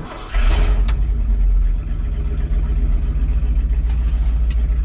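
A 1989 Ford F250's 5.8-litre V8 starting: it catches within a brief crank, runs high for about a second and a half, then settles to a steady idle. It is loud because no exhaust system is fitted.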